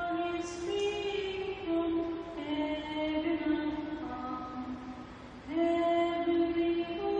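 A female voice singing a slow Christmas song in long held notes, pausing briefly about five seconds in before starting a louder new phrase.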